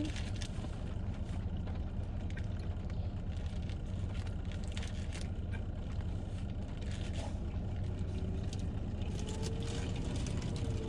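Steady low hum of a running car heard from inside its cabin, with short crackles of a foil sandwich wrapper being handled and the sounds of biting and chewing.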